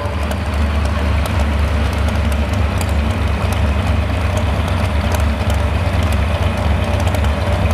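Modified 4x4 pulling truck's supercharged engine idling loudly through open exhaust stacks, a steady deep rumble with no revving, while hooked to the sled waiting to start the pull.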